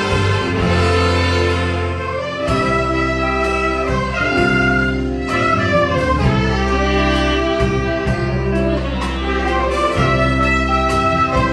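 Church orchestra playing an instrumental passage, brass and saxophone carrying sustained melody notes over strings and a steady bass line.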